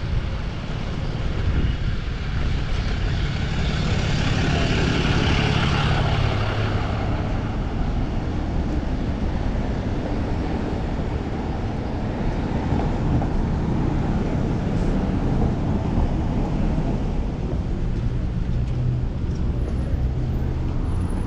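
Wind rushing over the microphone of a chest-mounted action camera on a moving bicycle, with road traffic around. A vehicle passes about four to six seconds in, its noise swelling and then fading.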